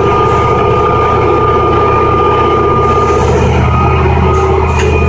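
Caterpillar 6060 hydraulic mining shovel's big diesel engine running steadily, a deep drone with a steady high whine over it that fades about three seconds in.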